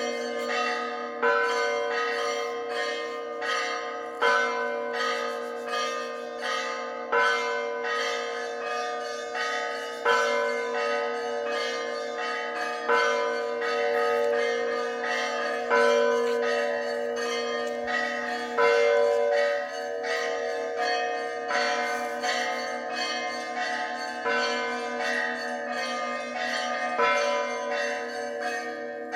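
Russian Orthodox church bells ringing the call to a service. Small bells strike in a rapid, continuous pattern over the steady hum of the larger bells, with a heavier stroke about every three seconds.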